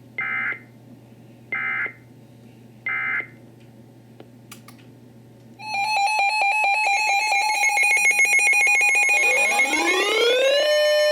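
Emergency Alert System end-of-message data bursts: three short digital squawks about 1.3 s apart. A few seconds later a loud, pulsing electronic alarm tone starts, with sweeps rising in pitch repeating over it from near the end.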